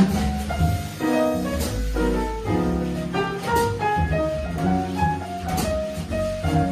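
Live jazz quartet of alto saxophone, piano, double bass and drums playing a slow ballad, with bass notes underneath and occasional cymbal strokes.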